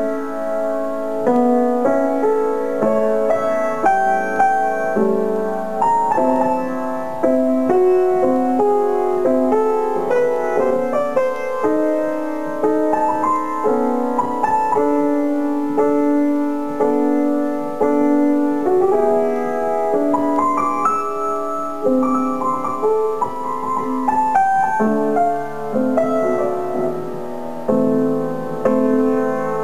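Solo grand piano playing a melodic piece, its notes and chords held and overlapping.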